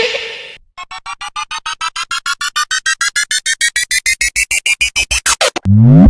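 Synthesized sound effect: a fast train of short electronic beeps, about nine a second, climbing steadily in pitch for nearly five seconds, like a charging riser. Before it, a noisy whoosh fades out in the first half-second. Near the end a loud low buzz cuts in.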